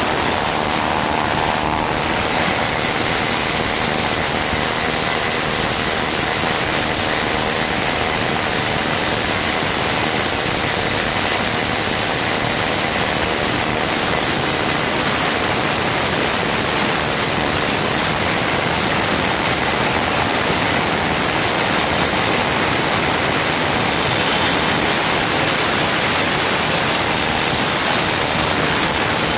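Harbor Freight pneumatic needle scaler running steadily, its bundle of steel needles hammering rust and scale off rusted steel.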